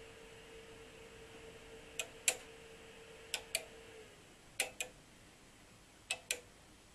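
Relays inside an ABB Aurora grid-tie solar inverter clicking in four quick pairs as it runs its start-up checks before connecting to the grid, the relays just repaired after an E031 relay fault. A faint steady hum slides down and dies away about four seconds in.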